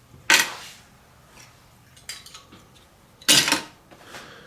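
A handful of small laptop Wi-Fi cards clattering as they are put onto a scale. There are two short clatters, one just after the start and one about three seconds in, with a few light clicks between.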